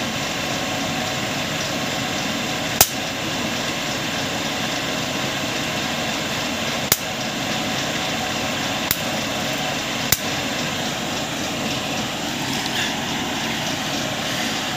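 Belt-driven flywheel rig powered by an e-rickshaw electric motor, running with a steady mechanical whir. Four sharp clicks cut through it, about three seconds in and then around seven, nine and ten seconds.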